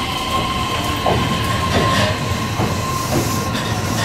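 JR Sagami Line electric commuter train pulling out and running past the platform, with a steady high whine and several short falling squeals.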